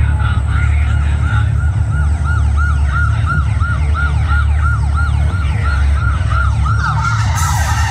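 Siren-like warbling tone played over a stadium PA, rising and falling about three to four times a second over a deep, steady rumble. Near the end a few falling glides and a bright hiss come in.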